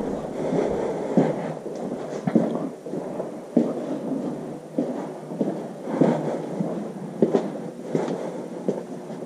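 Footsteps of a person walking across a hard floor and down a staircase: uneven thuds about once a second, with rustling over them.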